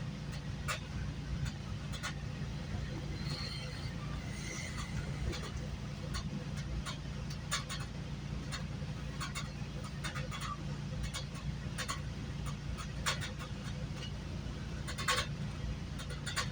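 Steady low rumble of a GO Transit bilevel passenger coach in motion, heard from inside the coach, with frequent irregular sharp clicks and rattles.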